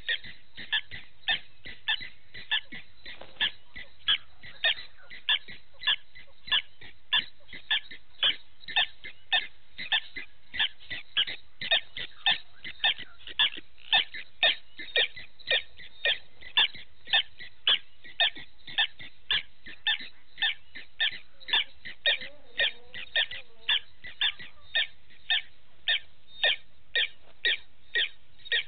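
An unseen animal calling: short, high chirps repeated evenly, about two a second, without a break.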